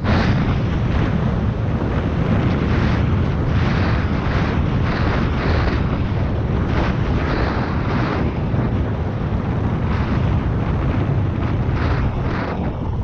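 Wind buffeting the microphone in irregular gusts over the steady running of a Suzuki MX125 trail motorcycle, as heard while riding.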